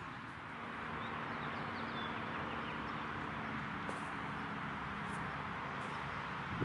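Steady outdoor background hiss with a few faint, short bird chirps and the odd faint click.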